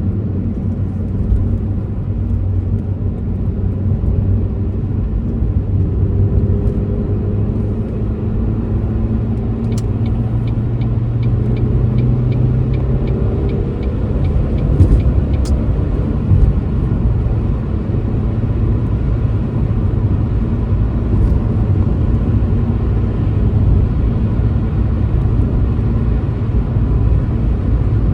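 Old Ford Focus being driven: steady engine and road noise, the engine note climbing through the first half and dropping off about halfway. A run of short regular ticks, about three a second, sounds for about five seconds in the middle.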